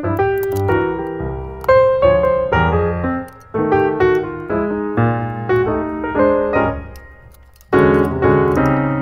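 Background piano music, a slow run of notes and chords. It fades almost out about seven seconds in, then comes back suddenly with a loud chord just before the eight-second mark.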